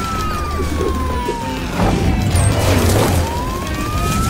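Cartoon siren wailing slowly, falling in pitch and then rising again, over background music, with a burst of whooshing, crashing effects about two seconds in.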